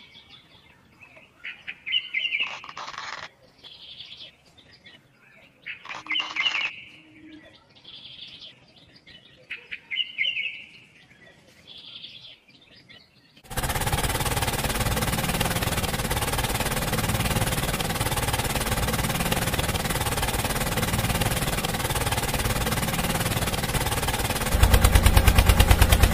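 Birds chirping with short calls every couple of seconds. About halfway through, a steady mechanical rattle starts suddenly and runs on, louder near the end: a motorized toy walk-behind tractor driving a belt-driven toy water pump.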